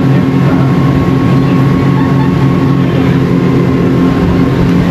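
Motorboat engine running at a steady speed, loud and close, with a steady rushing noise underneath.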